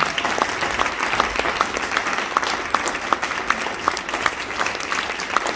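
Audience applauding: a dense, steady patter of hand claps with a few sharper single claps standing out.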